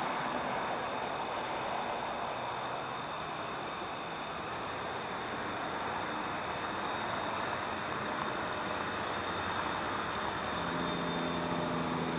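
Steady highway traffic noise, with a thin, steady high tone over it and a low engine hum coming in near the end.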